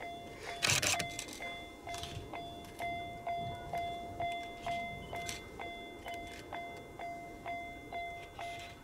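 Japanese level-crossing warning bell dinging steadily, about two and a half strokes a second, sounding because a train is approaching the crossing. A brief burst of hiss about a second in is the loudest moment.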